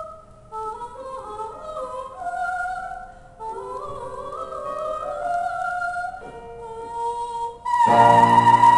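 Solo classical soprano voice singing a cadenza of quick ascending runs in short phrases. Near the end she launches into a loud, sustained high note as the piano comes in beneath her with a full chord.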